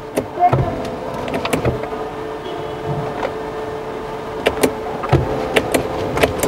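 A click as the 2011 Mercedes-Benz S-Class's ignition is switched off at the start/stop button, then a small electric motor in the car hums steadily for about six seconds, with scattered sharp clicks.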